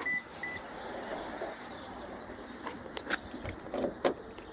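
Two short high beeps near the start, then a run of sharp clicks and knocks from handling at the car, with keys and the door being worked just after the RAV4 is unlocked with the new remote.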